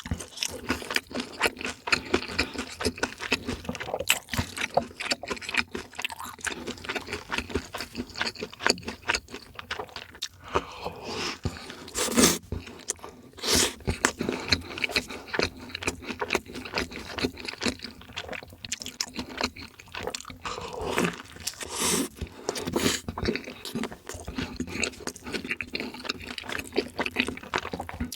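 Close-miked chewing and crunching of food, a steady run of irregular crackles and mouth sounds with a few louder crunches in the middle.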